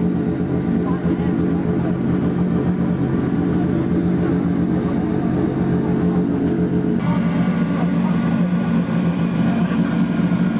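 High-horsepower car engine idling steadily, heard from inside the cabin. About seven seconds in, the tone of the idle changes abruptly.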